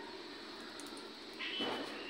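Low steady hiss of a gas stove burner under a pan of warm ghee. A bird chirps near the end, over a short louder rustle.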